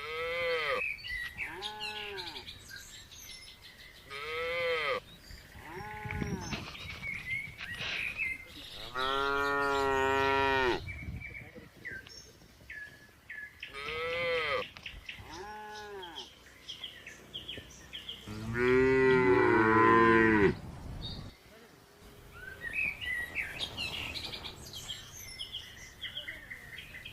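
Cattle mooing again and again: several short calls that rise and fall in pitch, and two longer, louder moos, the second the loudest. Birds chirp faintly between the calls.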